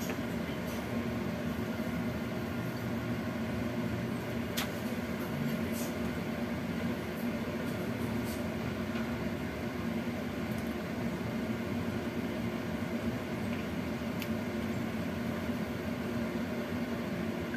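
Steady low kitchen hum from a gas burner alight under a lidded wok of steaming food, mixed with a fan motor's hum. A faint click comes about four and a half seconds in and another near the end.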